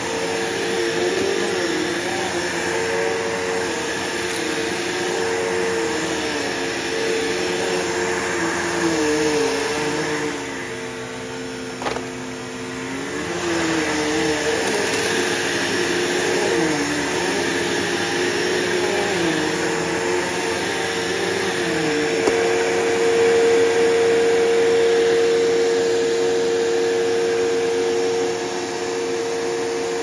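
Bissell PowerForce Bagged upright vacuum cleaner running on a rug. A steady motor hum holds one constant tone, while a second tone wavers up and down. It dips a little quieter for a few seconds around the middle, with a single click.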